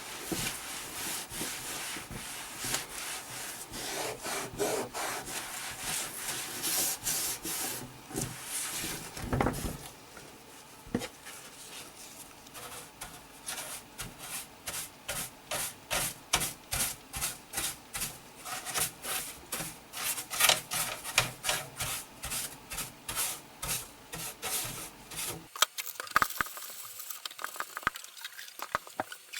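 Scrubbing on the plastic case of an Apple Macintosh Classic, cleaning it. The strokes are irregular at first and then settle into a steady back-and-forth of about two strokes a second, stopping near the end with a few light clicks.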